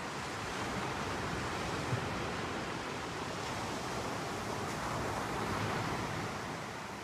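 Ocean surf at night: a steady rush of waves washing on the beach, swelling a little about a second in and again near the end, with one brief knock about two seconds in.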